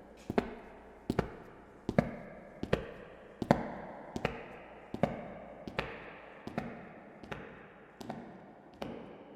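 Footsteps walking at a steady pace, about one step every three-quarters of a second, each step a sharp click with an echoing tail.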